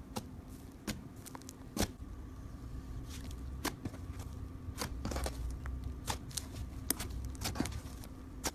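Thick, soft slime squeezed and stretched by hand, giving irregular sticky pops and crackles over a low squishing rumble.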